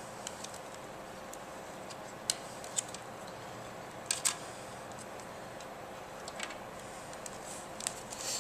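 Sharp clicks and light scraping of a SATA hard drive being pushed into its tight-fitting plastic drive mount, a few separate clicks spread out, with a pair close together about four seconds in.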